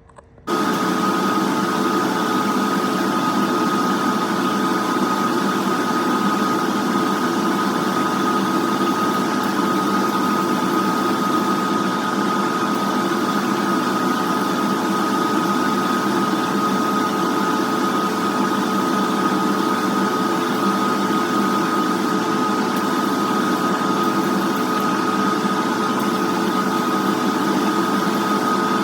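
A motor-driven machine switches on about half a second in and runs steadily, a constant hum with a steady high whine.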